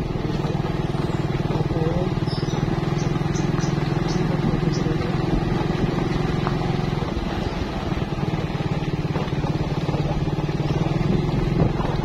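Motorcycle engine running steadily at cruising speed, with road and wind noise from riding over a dirt track.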